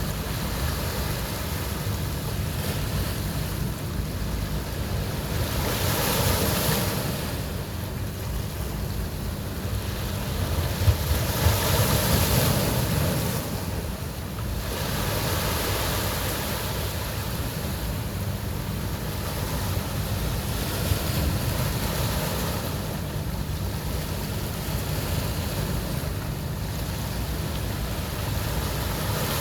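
Ocean surf breaking and washing on a beach, a steady roar that swells louder about six seconds in and again around twelve seconds in as bigger waves come ashore.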